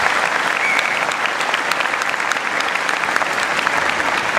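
Audience applauding steadily, a dense clatter of many hands clapping at once.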